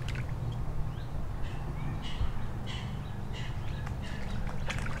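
Birds calling, a run of short harsh calls one after another, over a steady low hum.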